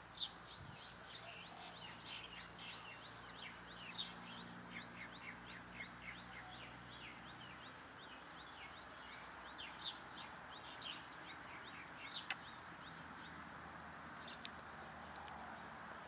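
Male Stejneger's stonechat calling and singing: a run of quick high chirps, several a second, with a few louder notes among them, thinning out about twelve seconds in. Steady background hiss runs beneath, and a single sharp click comes near the end of the chirping.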